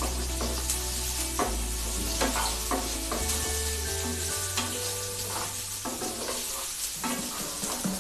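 Chopped onions sizzling as they fry in hot oil with mustard seeds and chana dal, with a spatula scraping and tapping the pan as they are stirred. Background music plays quietly underneath.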